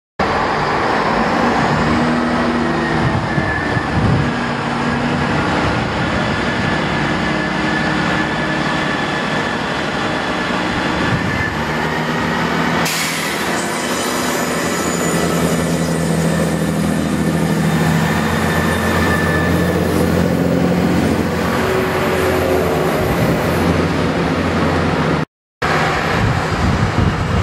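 Great Western Railway Turbo diesel multiple unit passing: the diesel engines run steadily, with the wheels rolling on the rails.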